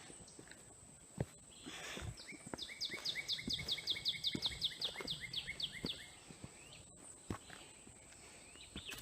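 A songbird sings a rapid trill of about twenty quick, falling notes, lasting about three and a half seconds. Footsteps thud along underneath it.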